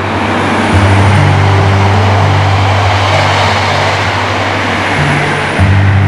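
A passing vehicle: a rushing noise that swells, is loudest about halfway through and fades away, over background music with steady low notes.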